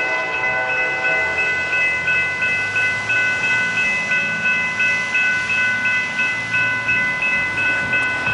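Railroad crossing warning bell ringing on and on, about two strikes a second, while the crossing gates go up after the train has passed. A low rumble of road vehicles starting across comes in about a second in.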